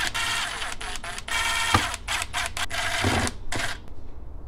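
Cordless drill-driver whirring in several short runs, driving screws that fasten a 6x9 car speaker into its plastic mounting bracket, the last run ending a little before the end.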